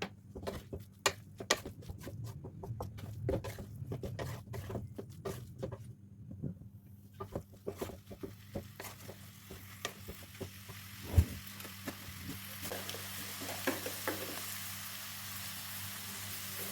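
Food sizzling in hot oil in a pan, with many clicks and taps of a utensil against the pan over the first half and one sharp knock about eleven seconds in; the sizzle builds through the second half and holds steady.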